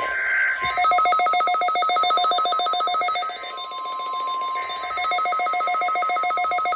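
Several emergency alert tones overlapping: a rapid, even electronic trill with a bell-like ring that starts under a second in, over a steady single-pitch warning alarm tone that fades in and out.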